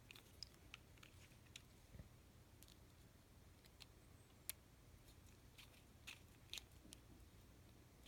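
Near silence, broken by faint, irregular small clicks of a flathead screwdriver turning a screw into a Marlin Model 15YN rifle, with metal parts tapping. The clearest click comes about halfway through.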